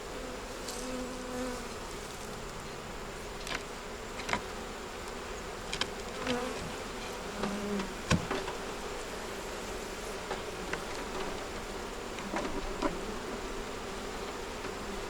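Honey bees buzzing around an opened hive, the hums of single bees drifting in and out as they fly past. A few short sharp clicks and knocks come through it, the loudest about eight seconds in.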